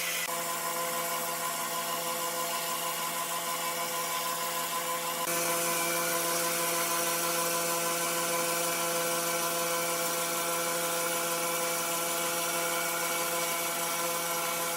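Sawmill machinery running with a steady whine made of several tones over a hiss. About five seconds in it abruptly gets louder and hissier.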